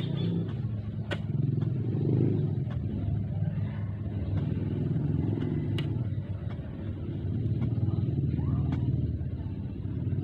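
Low, steady rumble of a motor vehicle engine running, swelling and easing in loudness, with a few sharp ticks.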